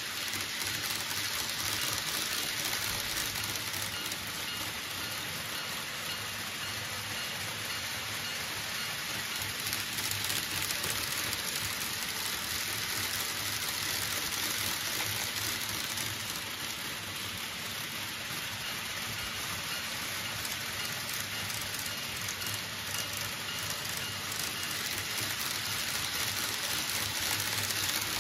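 Model trains running on their track: a steady, rain-like hiss and rattle of many small wheels on rail, with a faint low motor hum under it.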